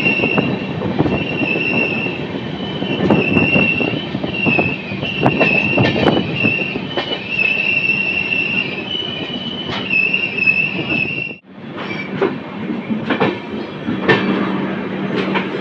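Passenger express train running on the rails, with rumble and frequent clicks from the wheels, and a loud, high, wavering metallic squeal from its running gear. The squeal stops suddenly about eleven seconds in, and the rumble and clatter of the train rolling on continue after it.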